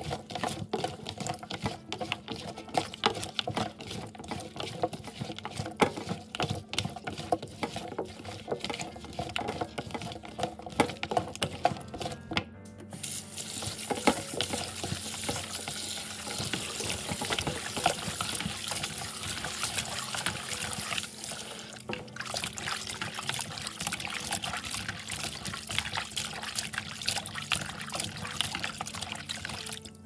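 Raw chicken feet being rubbed and scrubbed by hand with salt in a bowl: many small wet clicks and rubbing noises. About thirteen seconds in, water from a tap runs into the bowl with a steady hiss for roughly nine seconds, then the feet are swished and rubbed in the water.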